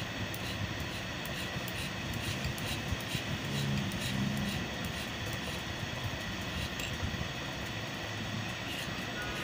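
A small file rubbed in light, regular strokes along the edge of the steel bobbin-thread cutter plate of a Juki buttonhole machine, sharpening it because the cutter is not cutting the bobbin thread cleanly. Underneath is a steady background rumble.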